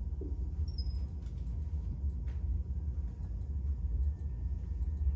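Low steady rumble of room background noise, with a faint click about two seconds in.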